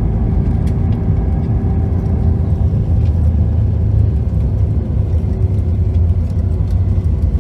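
Cabin noise of an Airbus A321-200 rolling out on the runway after landing, ground spoilers deployed: a loud, steady, deep rumble from engines and wheels, with a steady hum over it and a few faint clicks.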